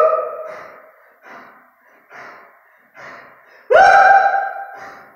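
A kettlebell lifter breathing hard with two 32 kg kettlebells held in the rack position: a loud, pitched gasping exhale, then short quick breaths, then another loud gasping exhale near the end. This is strained breathing under load.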